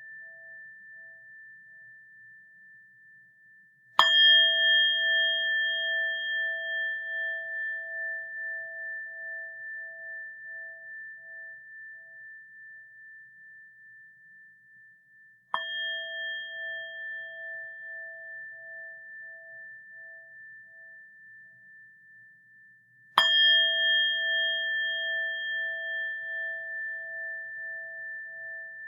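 A Buddhist rin (metal bowl bell) is struck three times: about four seconds in, again near the middle more softly, and once more about two-thirds through. Each strike rings on in a long, slowly fading tone, and its lowest note wavers in a gentle pulse as it dies away.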